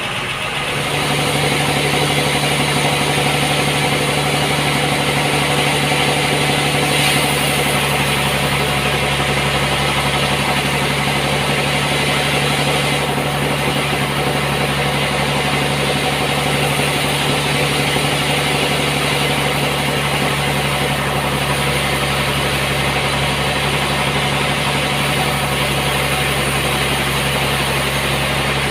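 Sawmill machinery running steadily: a constant motor hum under a dense hiss, getting louder about a second in.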